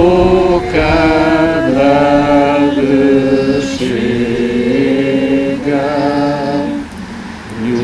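A small group of men's and women's voices singing a slow, solemn song together, each note held for about a second before stepping to the next.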